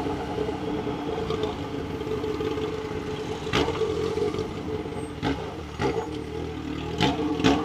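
Yamaha XJ6's 600 cc inline-four running through a straight pipe with no silencer, held steady at low revs at walking pace, with a few short knocks in the second half.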